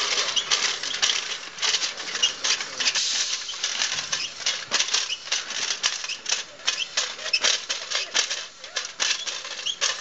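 Small scrap-metal robot clattering as it moves: rapid, irregular metallic clicks and rattles, several a second.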